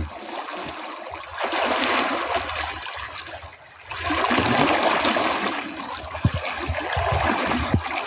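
A swimmer splashing with his arm strokes in a flowing irrigation canal, the water rushing and slapping. The splashing comes in two longer spells with a short lull about halfway through.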